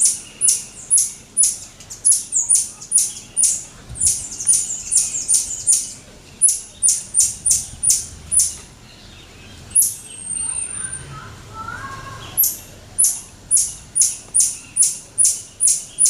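Marmosets calling in a rapid series of short, sharp, very high-pitched calls, about two a second. Near the middle the series breaks off for a few seconds, where a single longer thin whistle and some fainter lower calls are heard, then it starts again.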